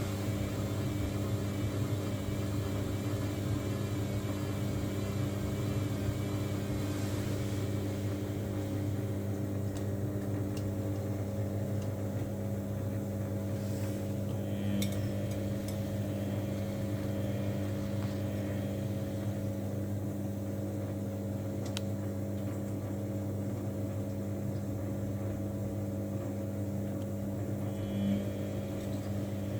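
Samsung washing machine running with a steady motor hum that holds one pitch throughout, with a few faint clicks.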